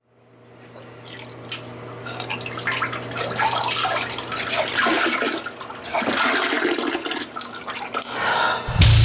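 Rushing water sample fading in over a steady low hum, opening a goregrind noise track. Shortly before the end, loud goregrind music with drums and guitar cuts in abruptly.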